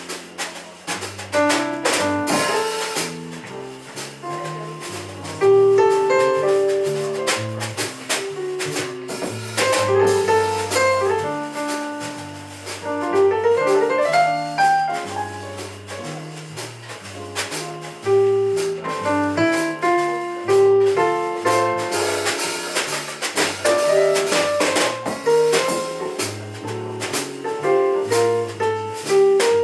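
A small live band plays jazz on electric bass, keyboard and drums with cymbals. A bass line moves under a keyboard melody, with a quick rising run of notes about halfway through.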